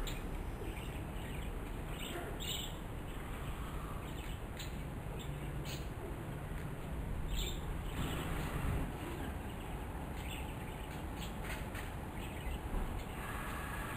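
Outdoor background sound: a steady low rumble with a few short bird chirps scattered through it.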